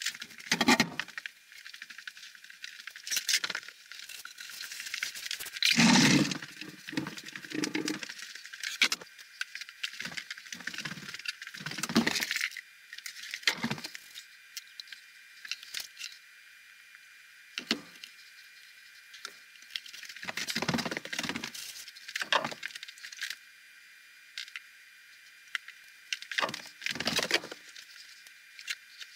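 Scattered knocks, clacks and rustles of wooden frame parts and glue bottles being handled and set down on a wooden workbench, at irregular moments with the busiest stretch about six to eight seconds in, over a faint steady hiss.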